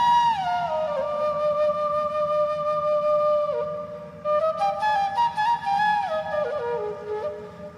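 Background music: a slow flute melody of held notes joined by pitch slides, over a low, steady backing hum.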